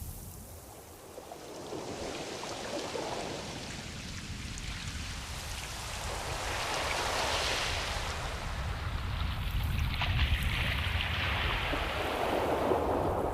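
Ocean waves washing in and out in slow surges, building a few seconds in and again near the end, over a steady low rumble.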